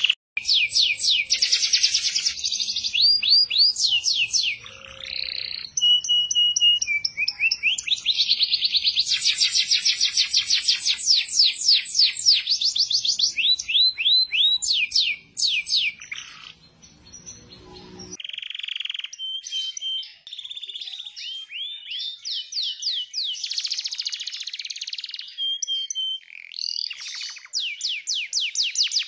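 Male domestic canaries singing: long phrases of fast trills of rapidly repeated high notes, broken by short steady whistled notes. The song cuts to a different, quieter bird about two-thirds of the way through.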